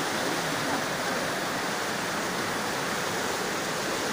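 Fast-flowing mountain river rushing over rocks in white-water rapids, a steady, unbroken roar of water.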